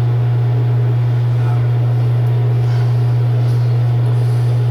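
Loud steady low hum on a telephone call line, with no one speaking.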